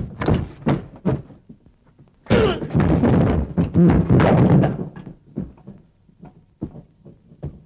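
Sounds of a fistfight: a quick run of thuds and knocks, then about two and a half seconds of loud, dense crashing and scuffling, then a few scattered knocks.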